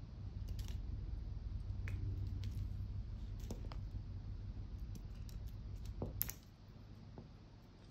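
Scattered light clicks and taps from a cat pawing and pouncing on a wooden floor, with a sharper click just after six seconds, over a low hum.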